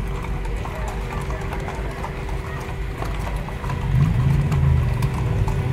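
Horses' hooves clip-clopping over a steady low rumble, with a louder low sound swelling up about four seconds in.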